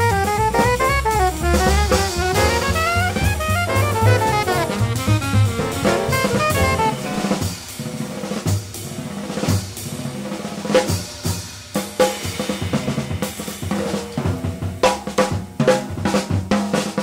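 Live jazz: an alto saxophone runs quick rising and falling phrases over upright bass and drums. About seven seconds in, the horn and bass drop out and the drum kit plays on alone, with snare, tom and cymbal strikes and bass-drum hits.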